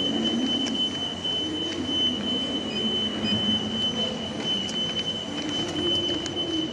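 Metro train running: a steady rumble with a constant high-pitched whine.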